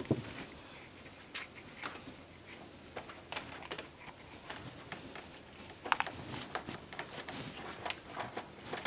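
Faint scattered clicks and rustles of a wiring harness and a washer hose, taped together, being fed by hand through a flexible pipe, with a small cluster of handling noises near the end.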